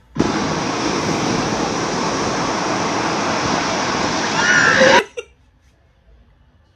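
Ocean surf: a steady wash of breaking waves that comes in suddenly and cuts off abruptly about five seconds in. A short voice-like cry rises over it just before the end.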